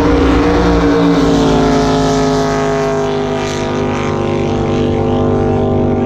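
Jet boat engine at full throttle, running hard and steady at high revs as the boat speeds across the lake, its pitch easing slightly downward as it moves away.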